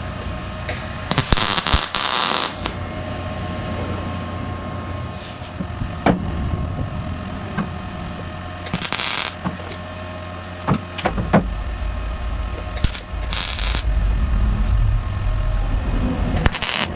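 Welder tacking a sheet-metal patch into a car's deck lid: five short bursts of arc noise, the longest about a second, spaced several seconds apart so the thin panel does not warp. A steady low hum runs underneath and grows louder about halfway through.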